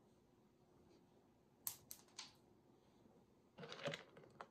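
A few short, sharp clicks on a ceramic tile floor about two seconds in, then a brief cluster of clicking and clatter near the end: small dry cat treats landing and skittering on the tiles.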